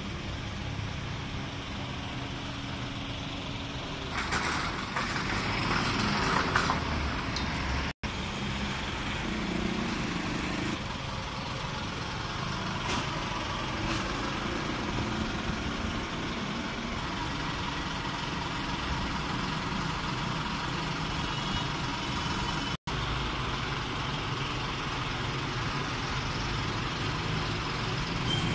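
Steady road-traffic and engine noise, with a louder stretch about four to seven seconds in. The sound drops out for an instant twice.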